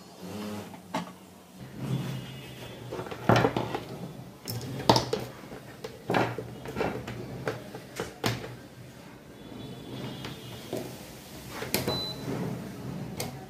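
Knocks and thumps of an infrared cooker being handled, turned over and set down on a wooden table, several of them sharp, over a low steady hum. About 12 s in, the cooker gives one short high beep as it powers up.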